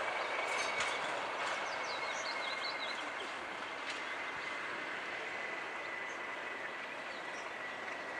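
Passenger coaches running along the track, heard from an open window: a steady rush of wheel-on-rail noise with a faint high thin whine held throughout, a few sharp clicks, and some short high chirps in the first three seconds.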